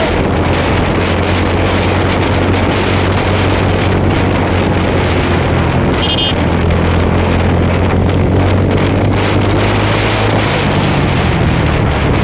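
Motorcycle engine running steadily at cruising speed, with heavy wind rush on the microphone.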